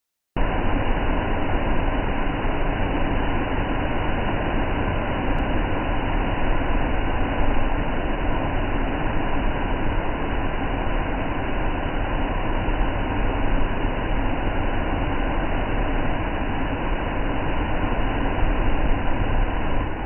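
Large waterfall plunging into its pool: a loud, steady rush of falling water.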